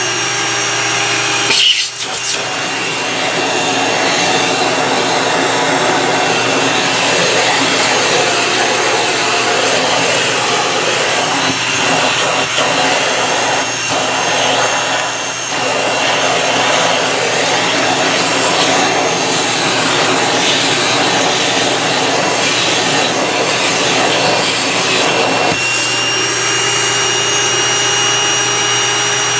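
National MC-250c vacuum cleaner running steadily with its crevice tool, rubbing and scraping along the floor as it sucks, with a brief knock about two seconds in. Near the end the motor's steady whine comes through clearer again.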